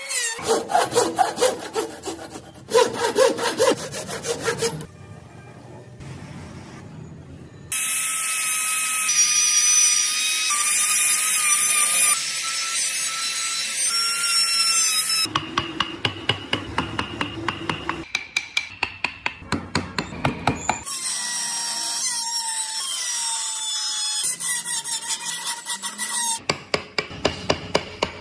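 Hand tools working wood: rapid rhythmic sawing or rasping strokes, in stretches that alternate with a small power tool's steady whine. The whine shifts in pitch and falls off a few times as the tool slows.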